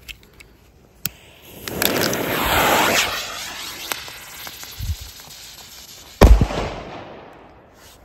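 Lesli Cuby Blizzard firecracker (Kanonenschlag) spraying sparks with a rushing hiss that swells and then fades. About six seconds in it goes off in one sharp, very loud bang that dies away over a second or so.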